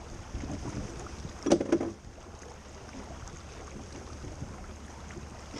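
Wind and water noise on a boat, with a steady low rumble against the microphone and a short, loud clatter about a second and a half in.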